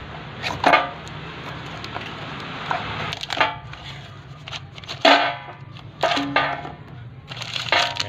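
Small cardboard box being handled and opened by hand: a series of short scrapes and creaks of the card flaps, five or so, over a steady low hum.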